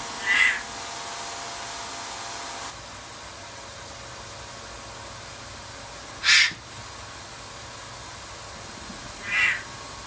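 Parrot squawking three times, short harsh calls about a second in, about six seconds in (the loudest), and near the end, over a steady background hum that stops about three seconds in.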